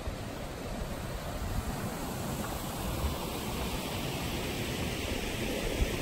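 Steady rushing of flowing water from the stream under a wooden footbridge, growing a little brighter about halfway through. Wind rumbles low on the microphone underneath.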